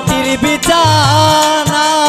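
Bangla folk song: a male voice holds a long, wavering note that dips about a second in and then steadies, over dhol drum strokes and harmonium.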